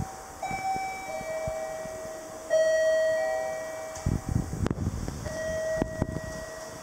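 Station platform chime: clear bell-like tones struck a few times, the loudest about two and a half seconds in, each ringing and fading, with a few low rumbles between them.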